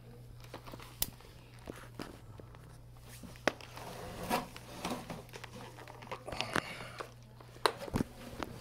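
Scattered short clicks, taps and scuffs of footsteps and handling noise in a small basement, over a steady low hum.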